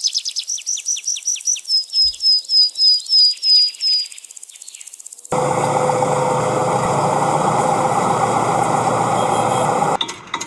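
A rapid run of high, short chirping beeps, each falling in pitch, about four a second, for about four seconds. About five seconds in, a steady vehicle engine starts running with a hum, and it cuts off suddenly near the end.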